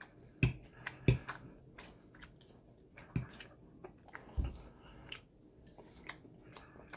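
Close-miked chewing of soft Bananas Foster French toast: irregular wet mouth clicks, with a few louder sharp knocks scattered through.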